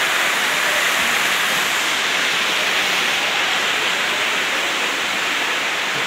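Waterfall spilling into a plunge pool: a steady, even rush of falling water.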